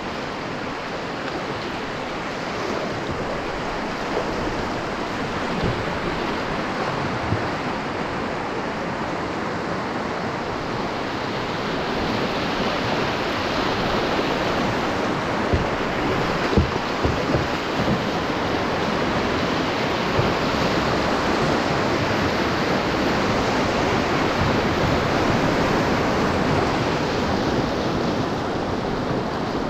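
River rapids rushing steadily around a solo canoe running whitewater, the rush growing louder about halfway through as the boat enters rougher water. A few sharp knocks come near the middle.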